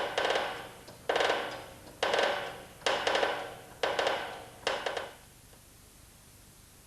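Six sharp metallic knocks about a second apart, each ringing out and fading, from a press being worked to push the piston pin out of a piston; then only faint hiss.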